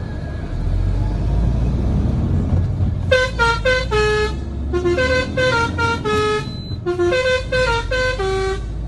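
Lorry's multi-tone 'telolet' musical horn playing a quick tune of short stepped notes, starting about three seconds in, over the low rumble of the engine running.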